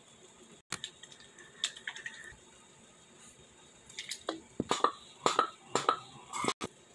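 A man drinking from plastic drink bottles: short wet gulps and liquid sounds, sparse at first and bunched into a quick series in the second half.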